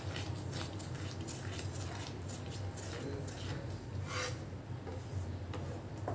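A wooden spatula stirs thick semolina mixture in a nonstick pan, making soft scrapes and small clicks, with a short louder scrape about four seconds in. A steady low hum runs underneath.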